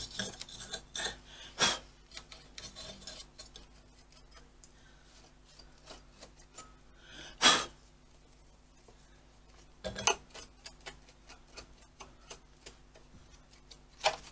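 Stiff brush rubbing and scratching over the Atlantis sewing machine's needle and bobbin area to clear out lint, with scattered small clicks and taps as hands work over the machine. A few louder brief swishes stand out among the soft rubbing.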